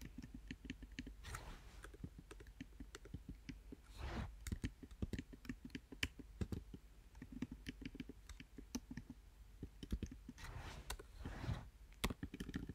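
Computer keyboard keys and mouse buttons clicking irregularly, many small taps in quick succession, faint. A few brief soft rushes of noise come between the clicks.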